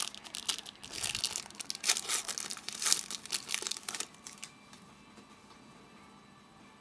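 Football trading cards rustling and flicking against each other as a stack is sorted through by hand, in quick crackling strokes for about four seconds before it goes quiet.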